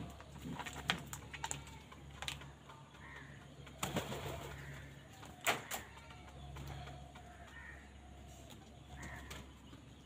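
House crows feeding at a plastic bowl: a handful of sharp pecks and taps, with faint bird calls now and then over a low steady hum.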